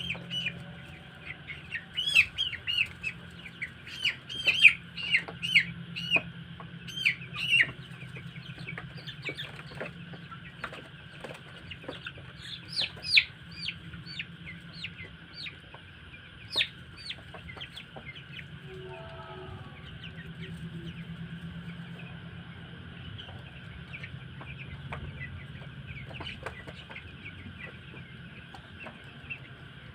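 A flock of young chicks cheeping: many short, high, falling peeps, thick for the first several seconds and then scattered, over a steady low hum.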